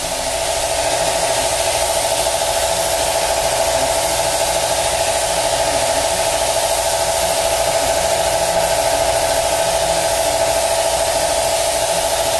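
Gravity-feed paint spray gun hissing steadily as compressed air atomises the paint, with a constant whistle-like note under the hiss.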